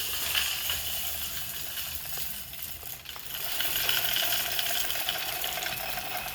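Bird seed mix of small seeds and nuts pouring from a bag into a plastic bird feeder, a steady rattle and hiss of many small grains that grows a little louder a few seconds in.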